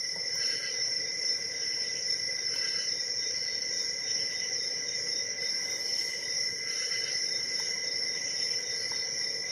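Crickets trilling steadily at a high pitch, with faint light clicks from a shallow hook pick working the pin tumblers of a padlock held under tension.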